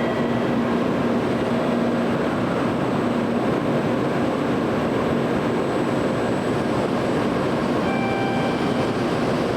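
Tokaido Shinkansen train running, a steady rushing noise with faint humming tones that come and go.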